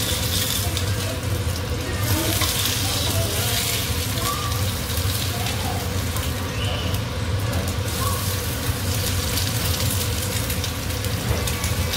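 Eggs frying in oil in a pan, a steady sizzle, with tongs turning them, over a steady low hum.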